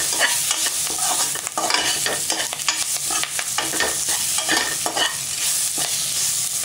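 A spoon stirring and scraping chopped tomato, onion and spices around the bottom of a pressure cooker as they fry. The oil sizzles steadily under frequent scrapes and clicks of the spoon on the metal.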